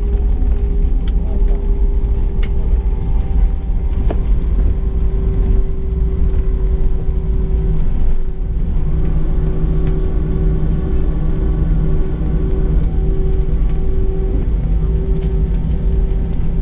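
Jet airliner cabin noise as the plane rolls along the runway after landing: a deep, steady rumble of engines and wheels with a steady hum, whose pitch shifts about halfway through, and a few faint clicks.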